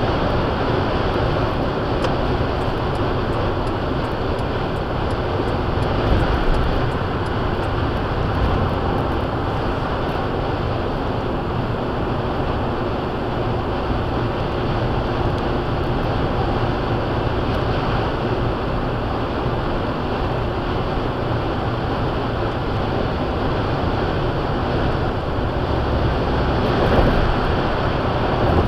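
Steady road and wind noise heard inside a vehicle cabin cruising at highway speed, with a low rumble from the tyres and drivetrain.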